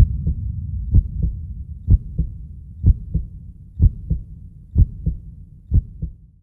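Heartbeat sound effect: a slow, steady lub-dub, two low thumps close together about once a second, over a low drone, slowly fading.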